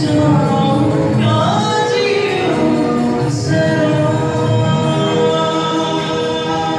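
A man singing live into a handheld microphone over musical accompaniment, amplified through a PA system.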